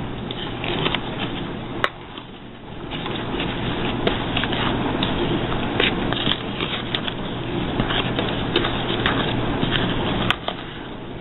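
Wooden spoon stirring a dry flour mixture in a metal mixing bowl: a gritty rustle of flour with frequent taps and scrapes of the spoon against the metal, easing off for about a second around two seconds in.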